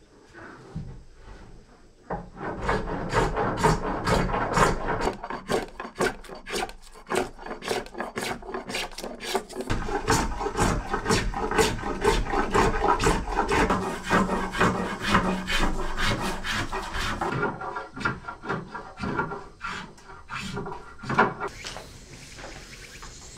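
Hand woodworking tool rasping along a curved wooden workpiece in quick repeated strokes, about three a second, thinning out a few seconds before the end.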